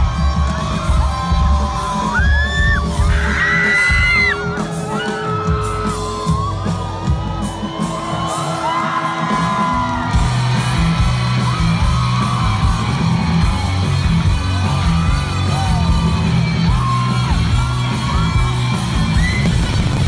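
Live rock band playing loud in a large hall, with the singer yelling and singing over bass, guitars and drums, and crowd noise underneath.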